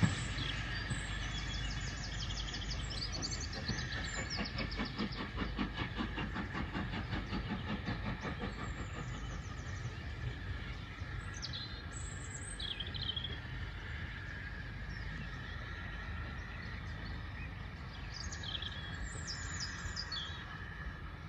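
Steam locomotive hauling a train away into the distance, a quick rhythmic beat that fades over the first half, with birds singing.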